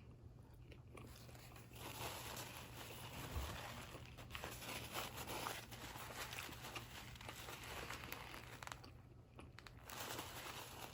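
Faint eating sounds from the last bites of a chicken sub: chewing, with small crinkles and crackles from the sandwich and its wrapper, pausing briefly near the end.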